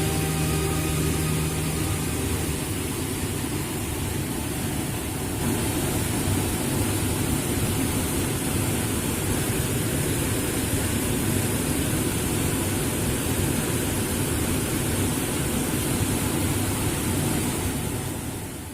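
Waterfall's rushing water: a steady hiss and rumble with no rhythm, fading out at the very end.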